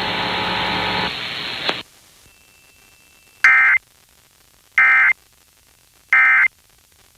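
Hiss from the relayed alert audio cuts off a little under two seconds in. It is followed by the Emergency Alert System's end-of-message signal: three short, identical data-tone bursts, each about a third of a second long and about a second and a half apart, marking the end of the required monthly test.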